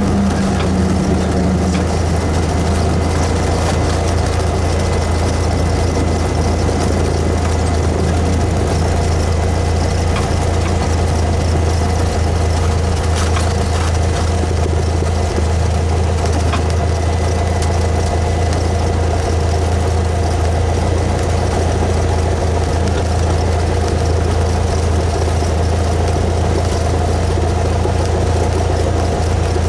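Cessna 172S's four-cylinder Lycoming piston engine and propeller running at a steady speed.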